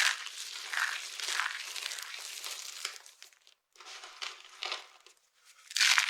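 A dry, crumbly block, such as dry soap or pressed chalk, being crushed close up in a series of crisp crunching and crackling bursts. The bursts come irregularly, with a brief pause just past the middle and a loud crunch near the end.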